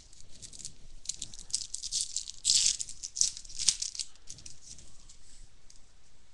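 Trading-card packs and cards being handled: rapid crinkling and rustling of foil wrappers and card stock, loudest in a burst about halfway through.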